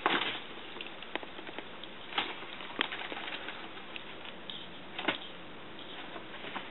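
Papers rustling and a few scattered sharp clicks as a tabby cat shifts on a pile of papers with its paw resting on a computer keyboard; the loudest rustle comes right at the start.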